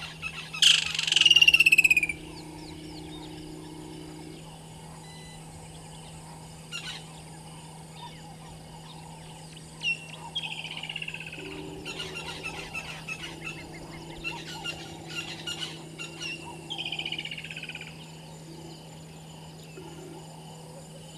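Birds calling: a loud falling whistled call about a second in and two more falling calls later, among scattered chirps, over a steady low hum.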